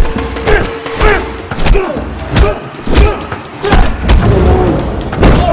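A string of heavy impact thuds from fight action, one every half second to a second, over music with a steady held note, with short vocal sounds between the hits.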